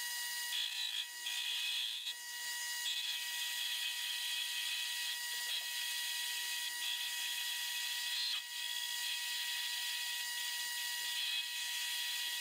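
Metal lathe turning a steel bar while the cutting tool takes it down to a taper. A steady high whine runs under a hiss of cutting that comes and goes in short stretches.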